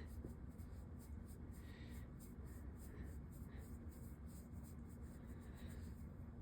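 Faint, rapid scratching strokes, several a second, over a low steady hum.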